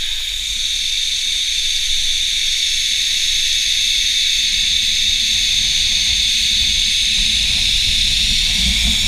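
Zipline trolley pulleys running along the steel cable with a steady, high-pitched hiss, while wind rumbles on the camera's microphone, the rumble growing stronger as the ride gathers speed.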